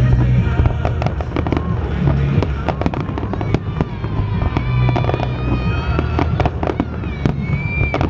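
Fireworks display: aerial shells bursting in rapid succession with sharp bangs and crackling, and music playing underneath.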